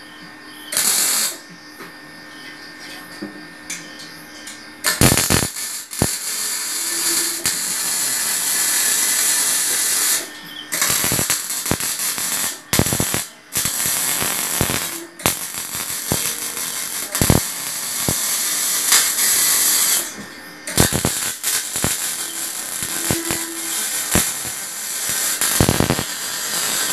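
Electric arc welding on steel chair frames: the arc crackling and hissing in long runs of several seconds, stopping briefly between welds. The first few seconds are quieter, with only a short burst of crackle about a second in.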